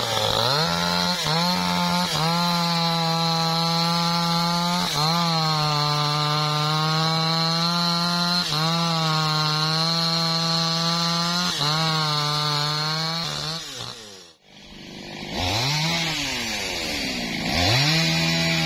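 MAESTRO petrol chainsaw at full throttle cutting through a teak log. Its engine note sags briefly every few seconds as the chain bites and then picks back up. After a sudden break about three-quarters of the way through, a chainsaw is revved up and down twice.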